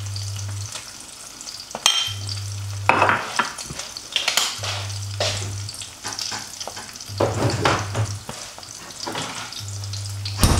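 Eggs frying in oil in a non-stick pan, a steady sizzle, with a low hum that switches on and off about every two and a half seconds. Scattered knocks and clatter of things being handled come through at several points.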